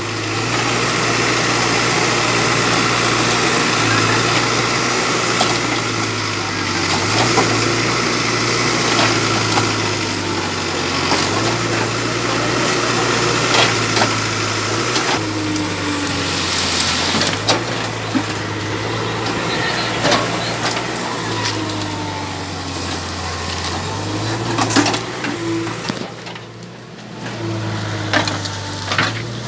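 Case backhoe loader's diesel engine running under hydraulic load, its engine speed rising and falling every few seconds as the boom and bucket work. Scattered cracks and snaps of bamboo stems breaking as the clump is torn out.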